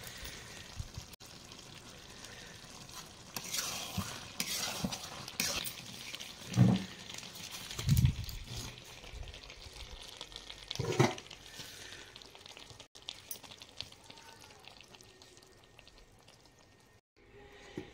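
Aluminium kadai of thick chicken curry being handled, with a light scraping hiss and three dull knocks about seven, eight and eleven seconds in as the pan is gripped and moved.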